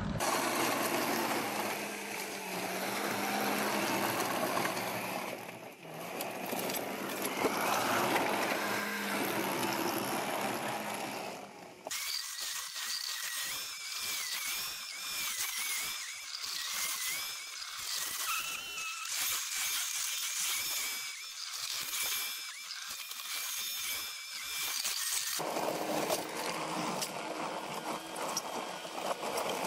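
CASE compact track loader working rock and dirt, its engine running steadily. Partway through, the low rumble drops away abruptly and high wavering squeaks come through, until the full sound returns near the end.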